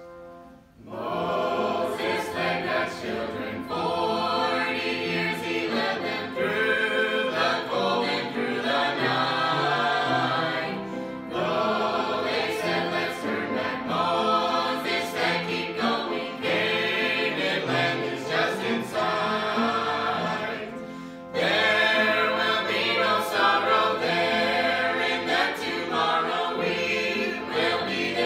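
A mixed group of eight voices singing a gospel song in four-part harmony (bass, alto, lead and tenor), coming in about a second in. There is a brief break between phrases about twenty seconds in.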